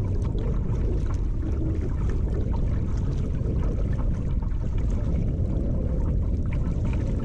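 Water rushing past a kayak's hull as it floats through a riffle on a river: a steady low rush with a few small splashes and ticks.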